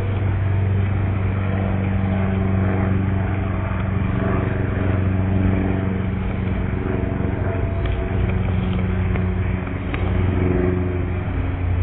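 A steady low machine hum, with a few faint ticks.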